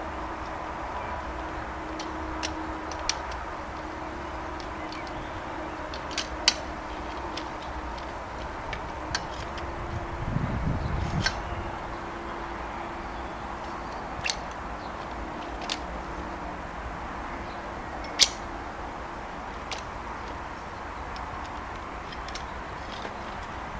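Scattered sharp clicks and knocks from a handmade folding mountain-bike frame being folded by hand, its clamps and hinged frame parts clicking as they are worked, with the loudest click about three-quarters through. A brief low rumble comes near the middle, over a steady background hiss.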